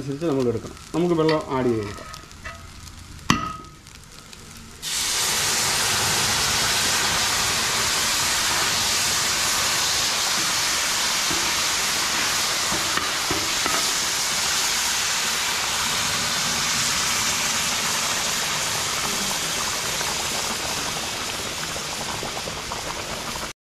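Water poured into a hot pot of sautéed rice and vegetables for pulao hisses and sizzles loudly. It starts suddenly about five seconds in, stays steady and eases slightly near the end.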